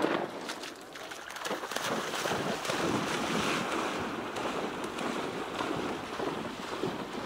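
The echo of a shotgun shot dies away at the very start. Then comes a steady rush of splashing water with many small sharp splashes, typical of a hunting dog plunging into the shallows and wading or swimming out on a retrieve.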